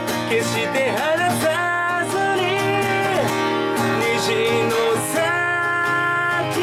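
Steel-string acoustic guitar strummed with a capo, accompanying a man singing, with a long held note near the end.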